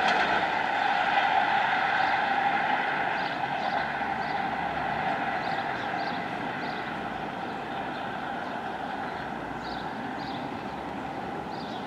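Class 37 diesel locomotive's English Electric engine running with a steady whine, fading slowly as the locomotive draws away.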